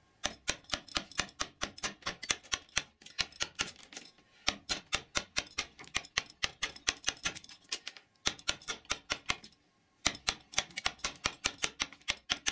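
A round wooden carver's mallet tapping a carving gouge into a block of wood, about four quick, even taps a second in runs with short pauses between. The gouge is roughing away the wood level by level.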